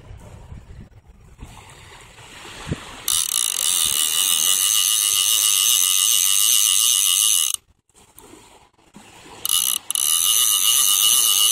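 Conventional fishing reel being cranked, its gears giving a loud, steady ratcheting buzz. It starts about three seconds in, stops for about two seconds, and starts again near the end.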